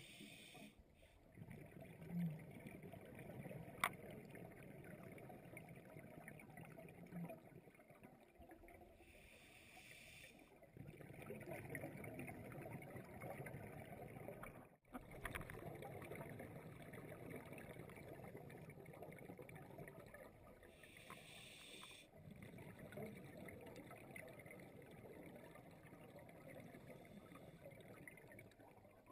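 Faint underwater hush heard through a dive camera's housing, with the hiss and bubbling of a scuba diver's exhaled breath through the regulator coming in short bursts about every ten seconds. A single sharp click sounds about four seconds in.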